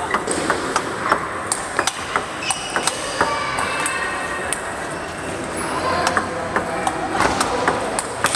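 Table tennis rally: sharp, irregular clicks of the celluloid ball off paddles and the tabletop, a few a second, with hits from neighbouring tables mixed in and ringing in a large hall.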